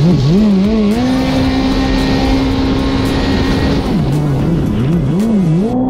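A 180 hp jet ski's engine running under way, its pitch swinging up and down with the throttle, then held steady at high revs for about three seconds before dropping and climbing again near the end, over the rush of water spray.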